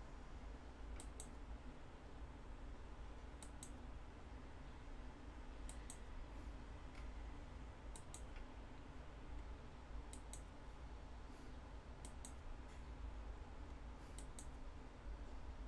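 Faint computer clicks, each a quick double click, coming about every two seconds over a low steady hum.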